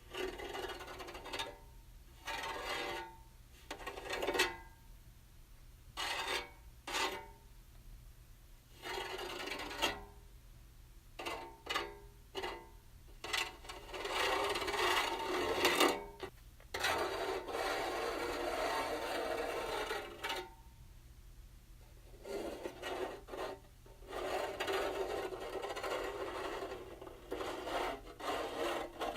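Fingernails scratching across metal: a string of short separate scrapes at first, then long stretches of continuous scratching.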